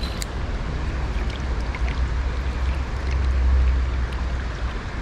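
Steady rush of water pouring over a river weir spillway, with a deep low rumble beneath it.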